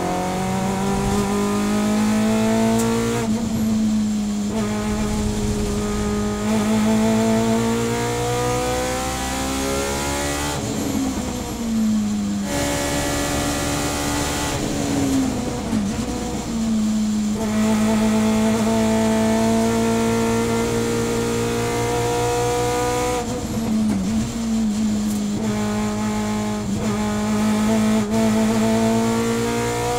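Subaru BRZ SP3 race car's short-stroke 2-litre flat-four boxer with individual throttles and a 4-1 exhaust, heard from inside the cockpit, accelerating hard through its sequential gearbox. The engine pitch climbs and drops sharply at each upshift. About two thirds of the way through, it lifts off and blips down through the gears under braking, then pulls again.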